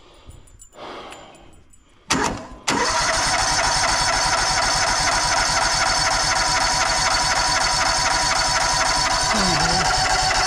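Portable sawmill's engine being started: a short loud burst about two seconds in, then it catches and runs steadily at a constant speed.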